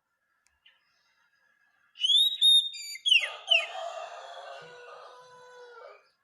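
Oriental magpie-robin (kacer) song from a masteran tutor recording. After about two seconds of quiet come clear high whistled notes, then two quick down-slurred whistles and a longer warbling phrase that fades out near the end.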